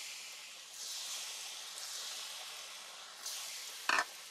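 Batter-coated tofu frying in hot oil: a steady high sizzle that swells about a second in and again just after three seconds. A brief vocal sound comes near the end.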